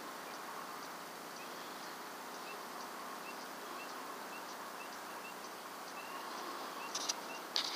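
Faint night-time outdoor ambience with a steady hiss. A small animal gives a short rising peep over and over, roughly every two-thirds of a second. A few sharp clicks come near the end.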